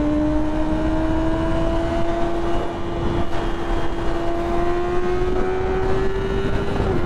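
2012 Yamaha R6's inline-four engine pulling steadily at high revs, its pitch rising slowly and evenly as the bike gains speed, then dipping slightly near the end.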